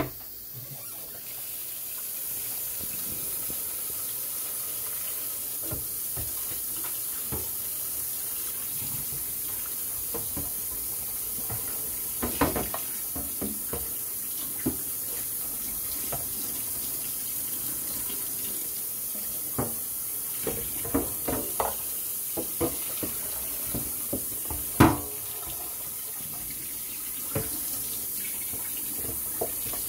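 Kitchen tap running steadily into a stainless steel sink as small litter-box parts are rinsed under it. The water starts about a second in, and the parts knock against the sink now and then, with one sharper knock about five seconds before the end.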